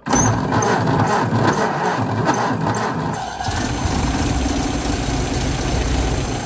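1928 Ford Model A's four-cylinder flathead engine being cranked and starting. It is uneven at first, then settles into steady running about three seconds in.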